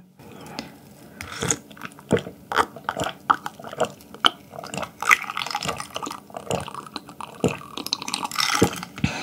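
A person drinking green tea from a glass mug close to the microphone, swallowing in an irregular series of wet gulps and clicks.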